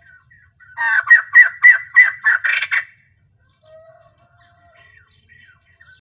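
Female white-crested laughingthrush calling: a loud burst of about eight rapid notes lasting about two seconds, then a few softer calls.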